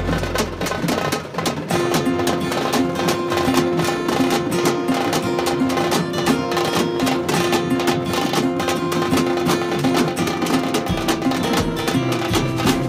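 Music with a fast, busy beat. A held note comes in about two seconds in, and the deep bass drops out and returns near the end.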